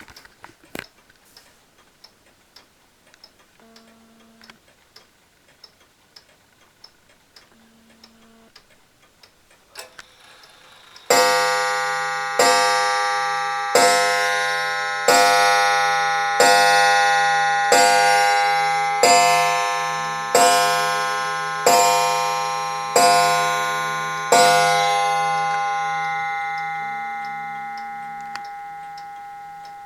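Clock ticking, then about eleven seconds in striking the hour: eleven loud ringing strokes about 1.3 seconds apart, the last left to ring away slowly.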